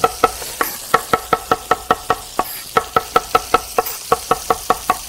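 Chef's knife chopping parsley and garlic on a wooden cutting board: a loud, rapid, fairly even run of knocks, about five or six a second, the blade rocked down tip first.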